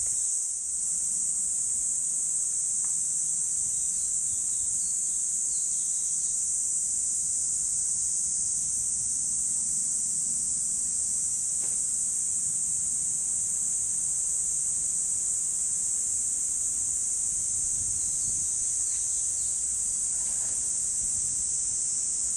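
Insect chorus: a continuous high-pitched drone that holds steady without a break.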